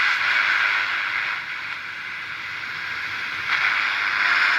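Radio receiver hissing with static, tuned off a station. The hiss fades a little in the middle and comes back louder near the end.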